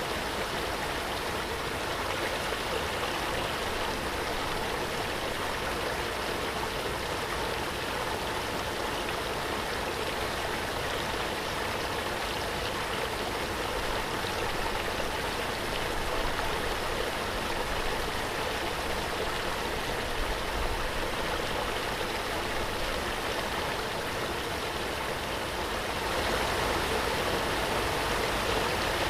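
Waterfall: a steady, even rush of falling water, a little louder near the end.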